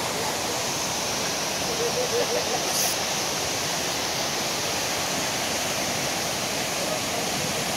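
Steady rushing of a fast stream's white water. There is a short high hiss about three seconds in.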